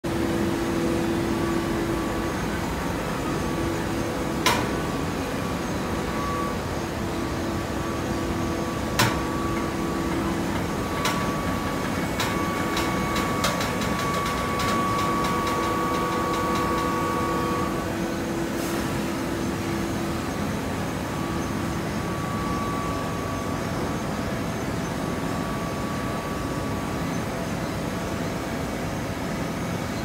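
TCM horizontal hydraulic baler running with a steady mechanical hum. Two sharp knocks come a few seconds apart, then a run of quick ticks in the middle.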